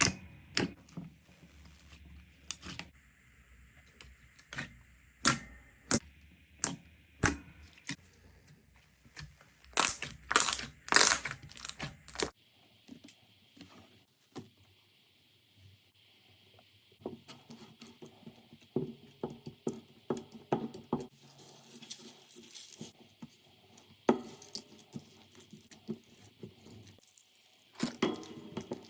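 Slime being squeezed and pressed by hand, giving a run of sharp pops and clicks with a loud cluster just before halfway. After an abrupt change partway through, it gives quieter, denser crackling and popping.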